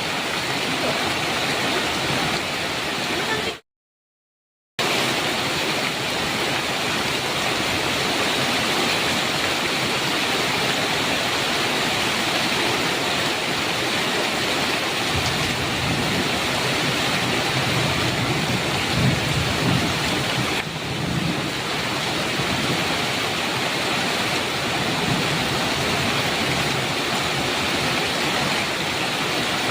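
Heavy rain drumming steadily on a metal roof, with a low rumble of thunder rolling through midway. About four seconds in, the sound cuts out to dead silence for about a second, then resumes.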